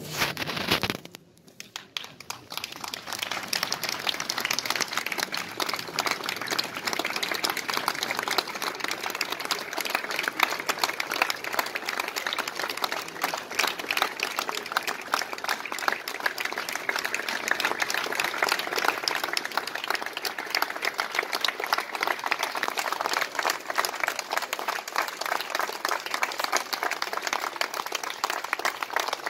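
Crowd applauding, many hands clapping together without a break. It dips briefly about a second in, then picks up again and stays level.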